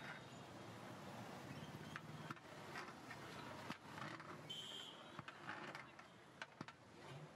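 Faint kitchen background noise with scattered light knocks and scrapes of a metal ladle stirring thick haleem in a large metal pot, and a brief high squeak about halfway through.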